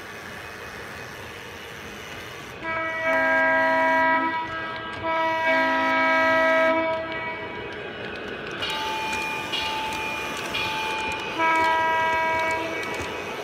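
Model Norfolk Southern diesel locomotive's onboard sound system blowing its horn in several separate blasts, over the steady running noise of the model train.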